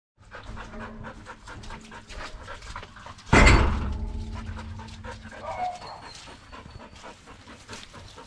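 A dog panting quickly and steadily, with one loud sudden thump about three seconds in.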